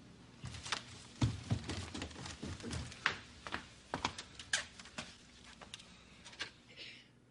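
Quick footsteps coming down a staircase and across a floor: a run of irregular thuds and clicks, heaviest between one and three seconds in.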